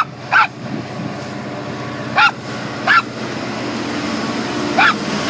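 A dog barks four times over the steady rumble of a passing freight train hauled by a Class 66 diesel locomotive, its two-stroke V12 engine running. The train grows louder toward the end.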